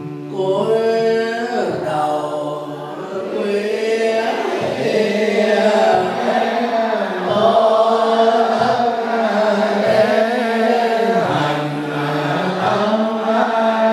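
Buddhist monks chanting a liturgy in steady, evenly paced phrases that break about every second and a half.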